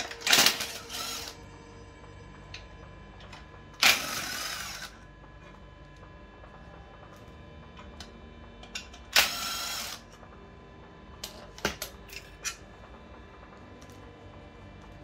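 Cordless impact driver rattling bolts loose inside a VW Crafter gearbox bellhousing, in three bursts of about a second each: near the start, about four seconds in and about nine seconds in. A few light metallic clicks follow about eleven to twelve seconds in.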